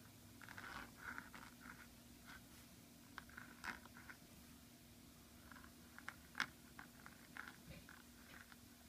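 Brause Rose flex dip nib on a Jinhao x450 fountain pen scratching across paper in short strokes as script is written, with a few sharp ticks of the nib.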